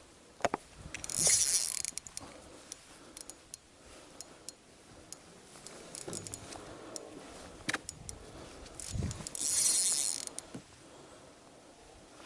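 Fishing reel drag buzzing twice as a hooked fish pulls line out, about a second in and again near the end, with the reel's gears ratcheting and clicking in between.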